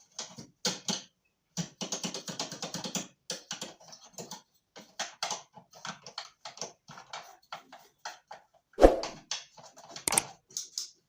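Rapid, irregular clicking and scraping from hands and tools at work on a window-type air conditioner, with one loud knock about nine seconds in.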